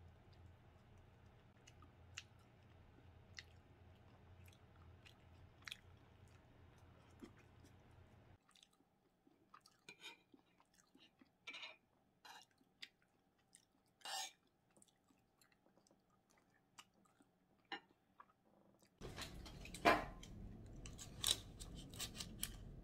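Eating sounds: chewing and a metal spoon clicking and scraping on a plate, heard as short scattered clicks and smacks. About three-quarters of the way through the background gets louder, with a few sharp knocks and rustles of handled paper.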